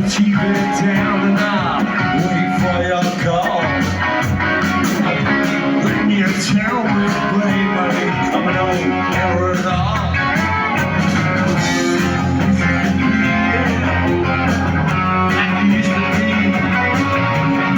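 Live rock band playing, with electric guitars to the fore over bass and drums, recorded from the audience.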